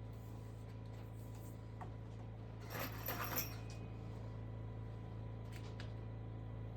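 A short cluster of light metallic clinks about three seconds in, over a steady low hum.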